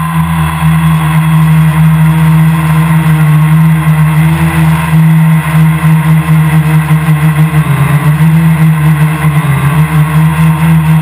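Quadcopter's electric motors and propellers running in flight, a loud steady whine of several tones over rushing air noise. The pitch dips briefly and recovers twice near the end as the motor speed changes.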